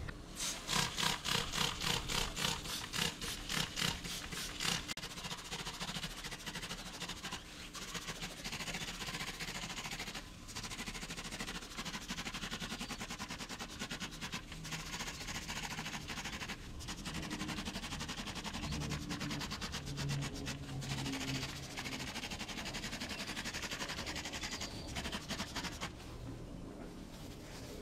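Trigger spray bottle squeezed over and over, spraying degreaser in hissing bursts onto the inside walls of a metal smoker cabinet. A quick run of squeezes in the first few seconds, then a more continuous spraying hiss.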